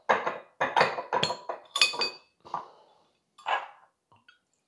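Glass clinking and knocking as a glass swing-top bottle is handled in and lifted out of a glass bowl. Several knocks over the first couple of seconds, the loudest a ringing clink about two seconds in, then one more short sound about three and a half seconds in.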